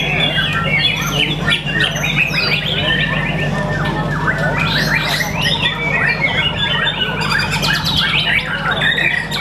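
White-rumped shama singing a dense, unbroken song of rapid whistles, pitch glides and trills that overlap one another.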